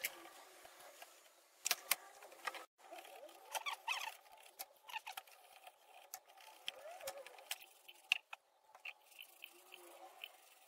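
A utility knife scraping and shaving the edge of a plastic cyclone cone in short, irregular strokes, with scattered clicks and light knocks as the plastic part is handled.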